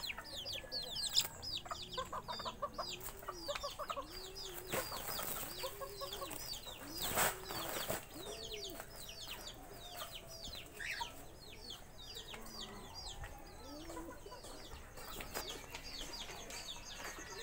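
Pigeons cooing: a row of low, rising-and-falling coos about every half second that dies away after several seconds. Under them, many short, high, falling peeps from birds run throughout. A sharp knock comes about seven seconds in.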